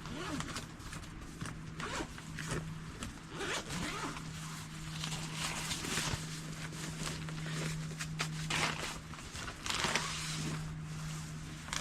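A zipper being pulled in a series of short strokes, with rustling, over a steady low hum.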